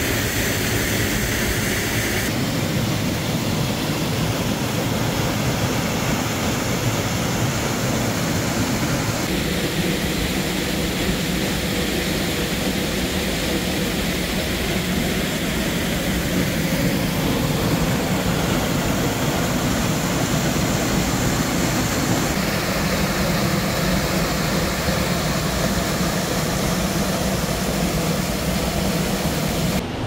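Small waterfall pouring into a rocky plunge pool, heard up close: a loud, steady rush of falling and churning water. Its tone shifts abruptly a few times.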